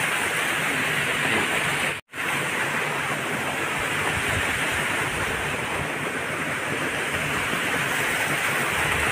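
Water rushing steadily over a small concrete weir spillway, with a brief break to silence about two seconds in.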